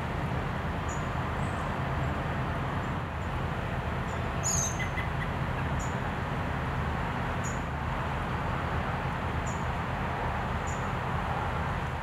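A bird chirping: short high chirps every second or two, one louder about four and a half seconds in, over a steady low rumble.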